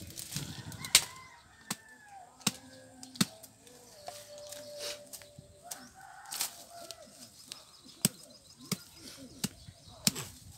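Irregular sharp clicks and rustles of dry leaves and twigs as bamboo pole traps are handled and baited, with chickens clucking in the background.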